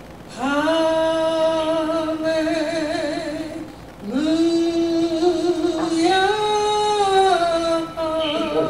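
A single voice singing a worship song without words, holding two long notes with vibrato. The second note rises about two seconds into it and falls back near the end.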